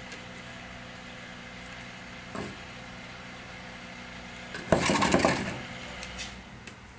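Scissors cutting zinc-core candle wick from a spool, with handling of the cut lengths and a steady low hum underneath. A short, louder burst of handling noise comes about five seconds in.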